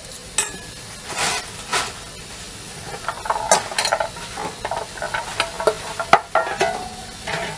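Peeled garlic cloves being handled on a steel plate, giving scattered light clicks and taps over a faint steady hiss.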